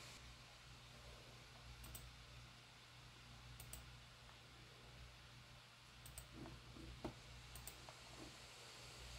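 Faint clicking, four pairs of quick clicks about two seconds apart, over a low steady hum; otherwise near silence.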